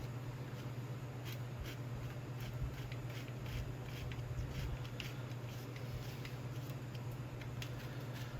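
Light, irregular clicks and ticks of hand tools and small metal engine parts being handled during carburetor work, over a steady low hum.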